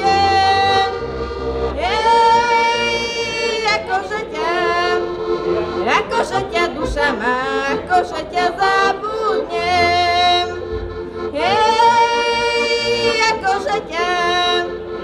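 A woman singing a Slovak folk song in long held phrases while accompanying herself on a heligónka, a diatonic button accordion, which holds steady chords underneath.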